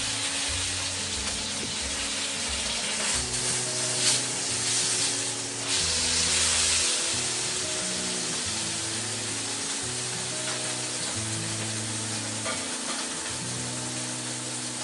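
Sous-vide pork steaks sizzling as they sear in a very hot wok, with a steady hiss that gets louder about four seconds in and eases after about seven seconds. Background music plays underneath.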